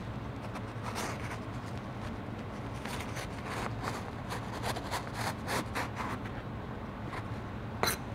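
A knife scraping excess fiber glass insulation off the foil facing of duct board, with the fibres tearing away in a series of short, scratchy strokes. A sharp click comes near the end.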